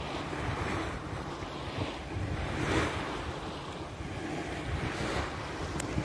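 Wind buffeting the microphone over open water, with waves washing. The wash swells about three seconds in and again near five seconds.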